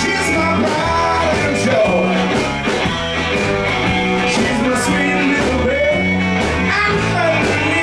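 Live electric blues-rock band playing a shuffle: electric guitars over a repeating bass line and drums keeping a steady shuffle beat.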